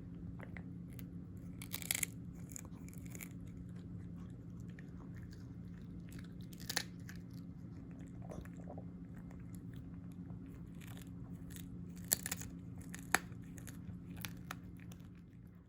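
A small dog chewing and crunching a soft chicken-neck treat, with a few louder sharp crunches of the small bones among quieter chewing clicks, over a steady low hum.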